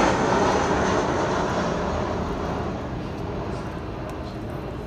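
Steady engine noise from a passing vehicle, loudest at the start and slowly fading away.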